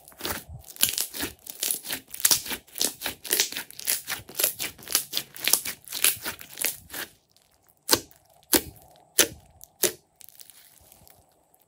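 Thick slime with foam beads mixed in, squeezed and kneaded by hand: wet crackling squelches about twice a second, then, as it is pressed flat, four separate sharp pops before it goes quiet.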